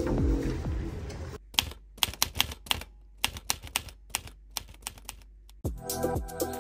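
Typewriter key clicks, a typing sound effect: quick separate taps, about four a second in short runs, after electronic music fades out in the first second or so. New music with a steady beat comes in near the end.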